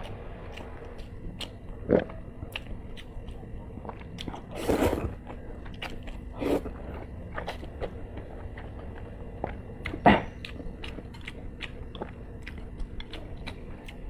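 Close-miked chewing of spicy fire-chicken noodles and egg: wet mouth clicks and smacks throughout, with a few louder bursts about 2, 5 and 10 seconds in.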